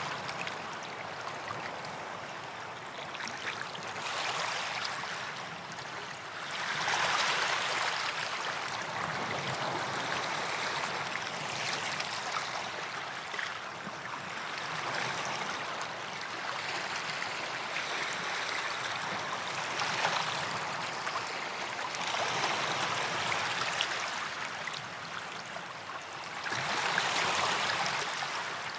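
Small waves breaking and washing on a sandy beach, swelling about every four to five seconds.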